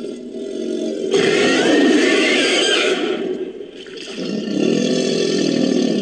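Invented creature calls made from edited crocodilian and dinosaur sound effects: a low, rasping call with wavering higher tones over it that builds about a second in and fades a little past the middle, then a second call rising about two-thirds of the way through.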